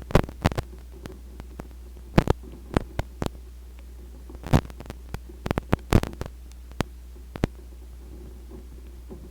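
Irregular sharp taps and clicks, scattered and uneven, some in quick clusters, over a steady low hum.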